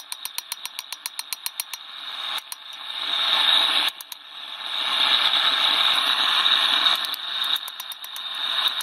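Hand hammer striking a bar of hot spring steel on an anvil in quick, even light blows, over a steady hiss. About two seconds in the blows give way to a loud rushing noise that swells, dips briefly, and eases near the end as the quick hammer blows return.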